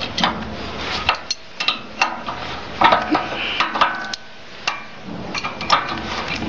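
Steel wrench clinking and knocking against the bolts and nuts of a spraying machine's metal housing while two bolts are loosened: a run of irregular sharp metallic clicks, some ringing briefly.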